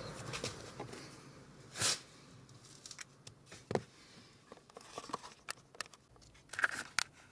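Hand work on car interior parts: scattered small clicks and knocks, with two short rustling or scraping noises, one about two seconds in and one near the end.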